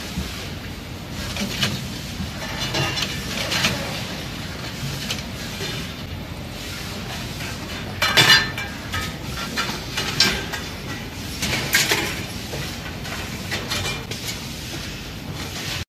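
Factory machinery running steadily, with irregular metallic clicks and clanks. The loudest clanks come about halfway through and twice more soon after.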